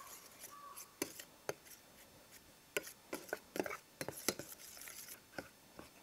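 Metal spoon clicking and scraping against a stainless steel plate while stirring boric acid powder into egg yolk to make a thick paste, in quick irregular taps.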